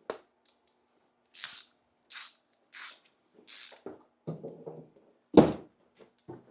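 Four short hissing bursts in quick succession, followed by light clattering of parts and one sharp knock, the loudest sound.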